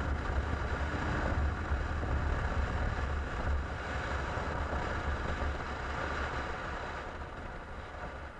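BMW F650 motorcycle's single-cylinder engine running under way, with wind rushing over the action camera's microphone, a steady low rumble that grows gradually quieter over the last couple of seconds.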